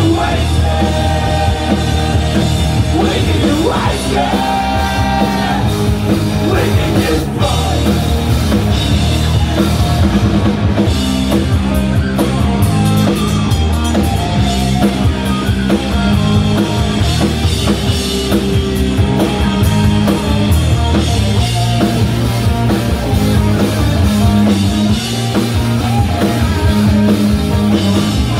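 Punk rock band playing live: electric guitar and drums, with singing.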